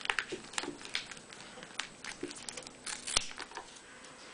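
Scissors snipping through the edge of layered duct tape in a run of short, crisp cuts, trimming off rough edges. A sharper click about three seconds in.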